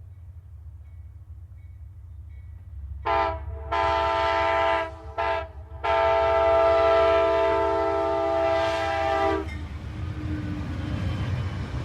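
Amtrak diesel locomotive's multi-note air horn sounding as the train slowly approaches: a brief toot, a longer blast, two short ones and a final long blast of about three and a half seconds. It sounds over the low rumble of the train, which grows louder after the horn stops.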